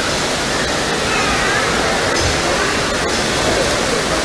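Steady rush of running and splashing water from an indoor water park's slides and sprays, with faint voices in the background.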